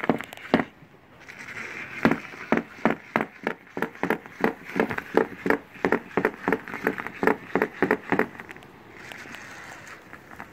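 Battery-powered self-rolling ball toy clicking and knocking against the side of a plastic storage tub, a fast even run of about four or five clicks a second that stops about eight seconds in, leaving a soft hiss.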